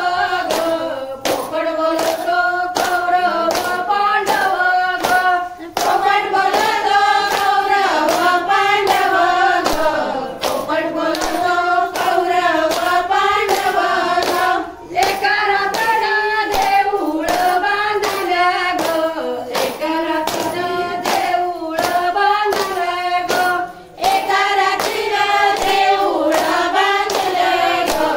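A group of women singing a traditional fugdi song together, with steady hand-clapping keeping the beat; the singing breaks off briefly three times between verses.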